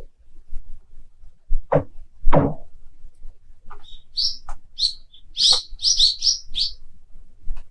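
Freezing lake ice giving two sharp, downward-sweeping zinging pings about two seconds in, then a quick run of short high chirps for the last few seconds.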